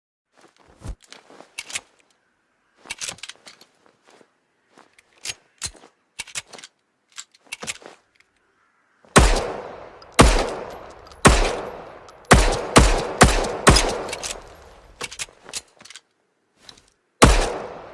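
M1911 pistol: a run of small sharp metallic clicks and clacks, then, from about halfway in, about eight loud shots, mostly about a second apart with a quicker group in the middle, each trailing off into a short echo.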